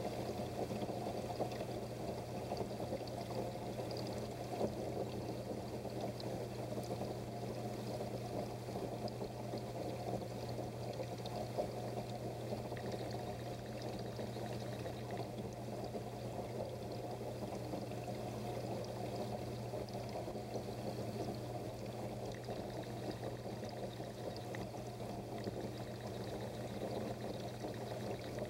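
Water pouring steadily from a filter return into the fish water, an even splashing wash over a low steady hum that does not change.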